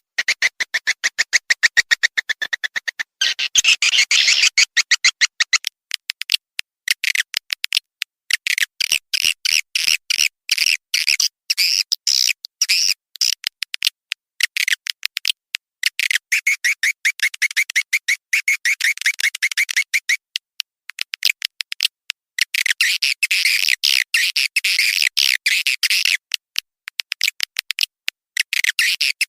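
Swiftlet call recording: dense, rapid high-pitched twittering chirps of swiftlets, coming in quick runs with short breaks. It is a lure call of the kind played to draw swiftlets into a nesting house.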